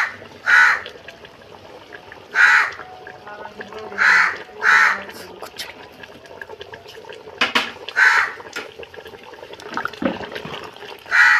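Crows cawing, about half a dozen short harsh caws spaced a second or more apart, over a low steady background with a few sharp clicks in the second half.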